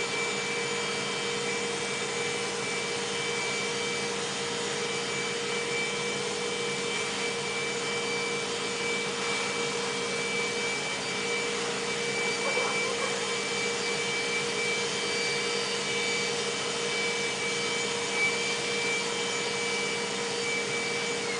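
Portable duct blower running steadily: a constant hum with a thin, high, unchanging whine over an airy rush.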